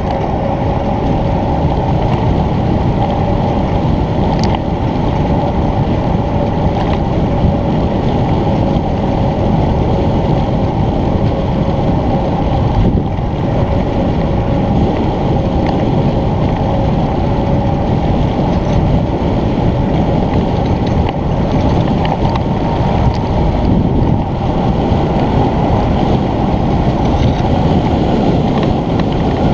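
Steady, loud wind rushing over the microphone of a camera on a bicycle coasting down a descent at speed, with a steady tone running under the rush.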